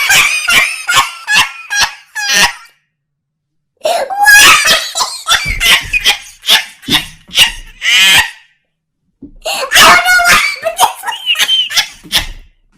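Loud laughter in three bouts of rapid pitched bursts, broken by two short silences about 3 seconds and 8 seconds in.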